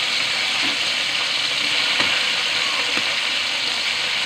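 Pork liver slices sizzling steadily in a hot aluminium wok, with a couple of light clicks of tongs against the pan about two and three seconds in.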